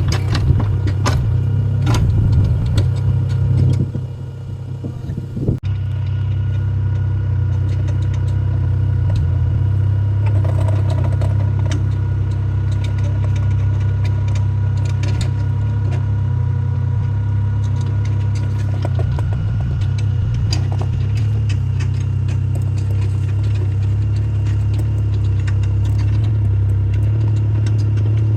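Mini excavator's diesel engine running steadily, with clatter and knocks in the first few seconds.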